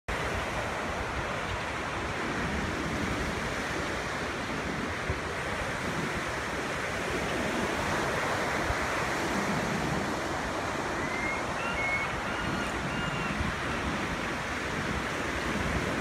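Pacific Ocean surf crashing and washing up a sand beach: a steady rush of breaking waves.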